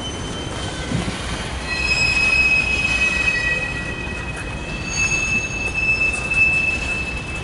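Freight train of tank cars rolling slowly past over a low rumble, its wheels squealing on the rails in several steady high-pitched tones. The strongest squeal sets in about two seconds in and holds.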